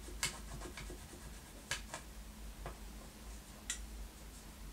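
Hands working on a guitar body on a workbench: light rubbing with a few sharp clicks and taps, the loudest about a quarter second in and again near the middle and about three quarters through.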